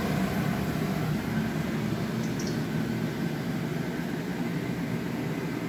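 A steady low machine hum with a hiss over it, unchanging throughout, like a running fan or appliance motor.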